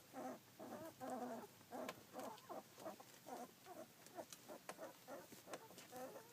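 Two-week-old rough collie puppies making a quick string of short, soft squeaks and grunts, several a second.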